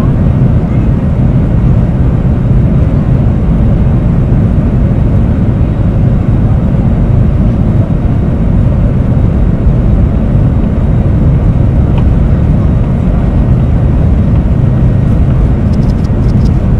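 Boeing 737 jet engines and runway rumble heard from inside the cabin as the airliner rolls along the runway: a loud, steady, deep roar.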